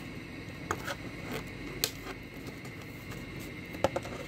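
Scissors and cardboard packaging being handled: a few scattered sharp clicks and snips, the loudest near the end.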